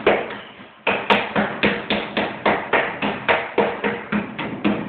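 Dough being slapped and pressed flat by hand on a work table: a quick, even run of knocks, about four a second, starting about a second in.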